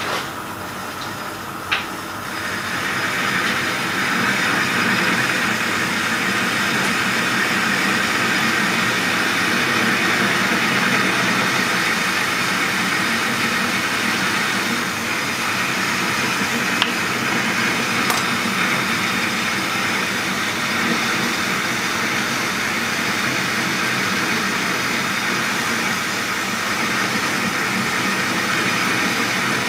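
Metal lathe running with a single-point tool cutting across the face of a model locomotive driving wheel, a steady cutting noise. The cut gets louder about three seconds in, with a few short sharp clicks along the way.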